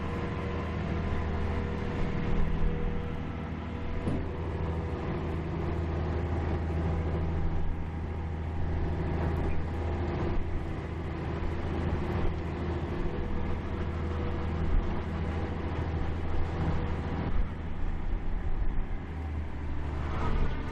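Shrimp cutter's diesel engine running with a steady low drone, with a few light knocks now and then.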